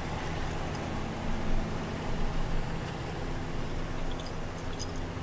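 Dodge Ram pickup truck's engine idling steadily.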